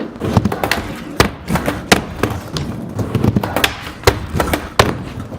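Skateboard wheels rolling on concrete, with several sharp clacks and thuds as the board strikes the ramp and ground during a trick attempt.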